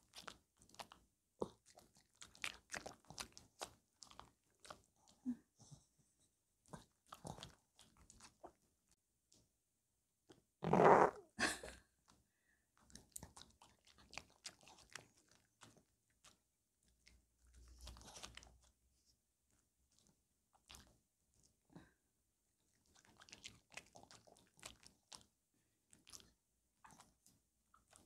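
Maltese dog chewing a strawberry, with wet smacking and crunching in short, irregular runs and brief pauses between bites. A louder burst of noise comes about eleven seconds in.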